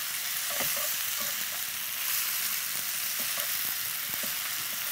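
Spinach and onions sizzling in an oiled frying pan while being stirred, with faint scattered knocks from the stirring utensil. The spinach is wilting and giving up its water.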